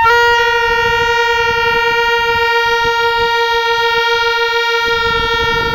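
Plastic toy trumpets blown together in one long, steady note, held without a break.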